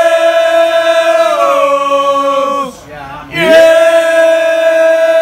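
Football supporters singing a chant: two long, loud sung phrases, each held on a high note and then sliding down to a lower one.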